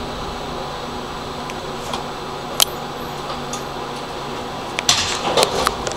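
Steady hum inside a tram standing at a stop. A single sharp click comes about two and a half seconds in, and a quick cluster of clicks and knocks comes near the end.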